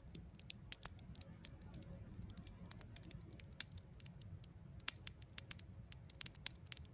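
Campfire crackling softly: irregular sharp pops and snaps over a faint low rumble.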